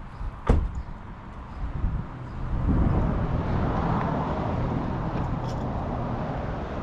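A sharp click about half a second in. From a little under three seconds in, a vehicle runs steadily with a low rumble.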